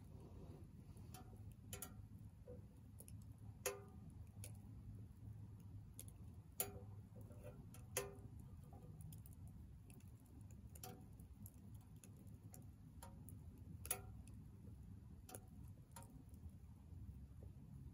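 Firewood burning in a small steel wood stove, giving faint irregular crackles and several sharper pops at uneven intervals over a low steady hum.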